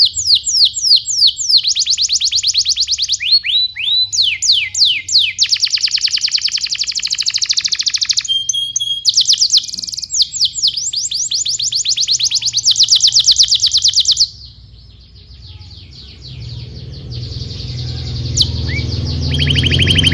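Domestic canary singing a long song of fast trills of repeated notes and downward-sweeping notes. The song breaks off about 14 seconds in, leaving a quieter stretch with a low rumble that slowly builds. A short trill starts again near the end.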